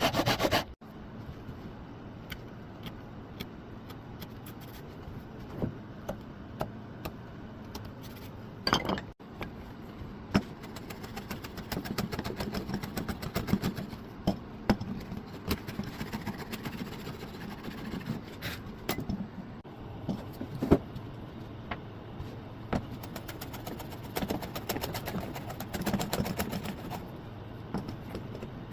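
Workshop handwork on wood: scattered clicks, taps and knocks of wood pieces and hand tools over a steady low hum, broken by a few abrupt cuts.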